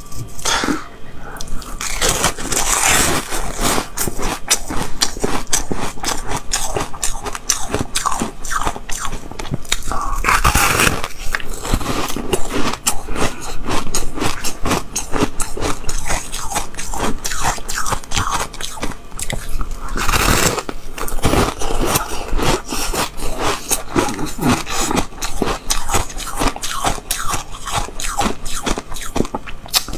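Biting and chewing a slab of frozen milk ice: a dense run of crisp crunching and crackling, with a few louder bites that snap off chunks.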